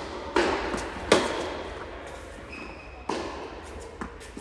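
Tennis ball hit by rackets and bouncing on the court in play: a series of sharp pops, each with a short ringing tail, a second or two apart. A brief high tone sounds about midway.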